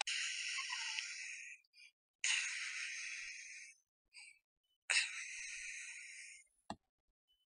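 A woman's three long, breathy gasps of mock shock, without voice, each about a second and a half long and fading away. A short click near the end.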